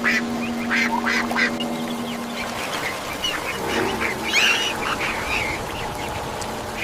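A duck quacking several times in short separate calls, with a steady held tone underneath for the first couple of seconds.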